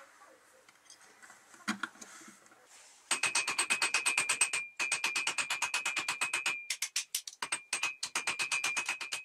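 Small hammer tapping rapidly on steel pins over an anvil, about eight light blows a second, riveting a motorcycle chain onto a blade's tang. Each blow rings with a clear high metallic tone. The tapping starts about three seconds in, after quiet handling of the chain and a single click, and breaks off briefly twice.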